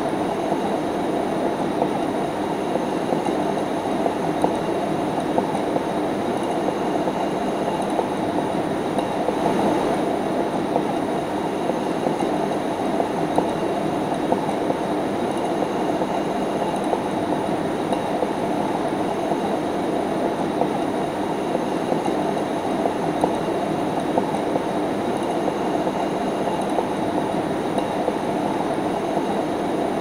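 Ceiling fan running steadily: an even, unchanging rushing noise, mostly in the lower middle range, with a few faint steady tones above it.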